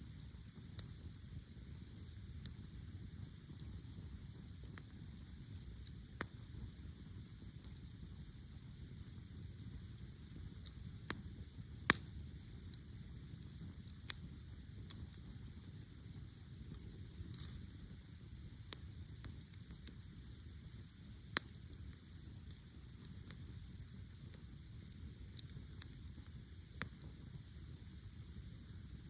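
Crickets chirring in a steady, high, unbroken drone. A campfire gives a few scattered sharp pops, the loudest about twelve seconds in.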